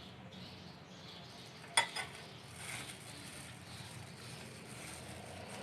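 Faint food-preparation handling sounds: a sharp click or tap a little under two seconds in, followed by a softer second one, then soft rustling.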